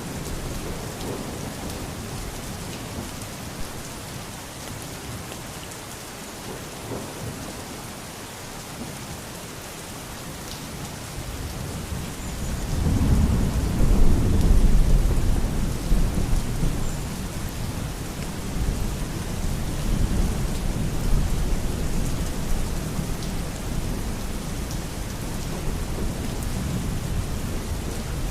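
Steady rain falling, with a long, deep roll of thunder that swells up about halfway through and rumbles on as it slowly fades.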